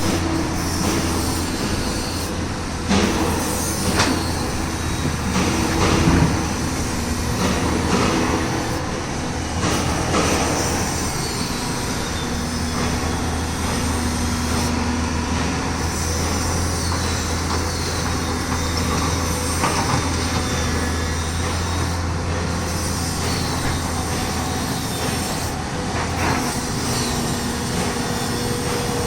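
Heavy construction machinery running with a steady low drone that stops near the end, overlaid by repeated metal knocks and clanks and high squealing glides.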